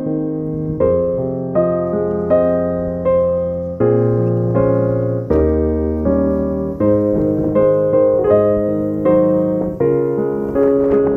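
Background piano music: a slow, gentle piece of struck chords and notes, each ringing and fading before the next.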